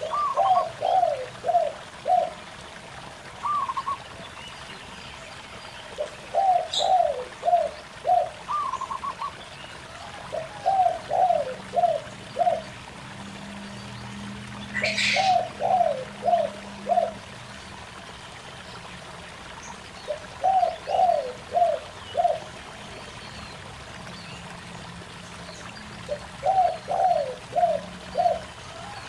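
Doves cooing: a phrase of four or five soft coos repeated about every five seconds, with a few shorter, higher coos in between in the first half. Two brief high chirps come from another bird, over a small stream trickling over rocks.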